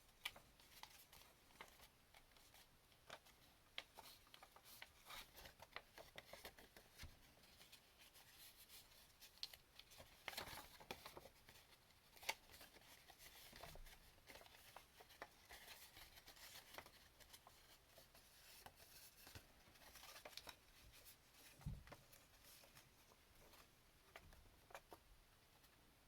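Faint rustling and crisp little clicks of cardstock being creased and folded along its score lines by hand, with a soft thump a little over twenty seconds in.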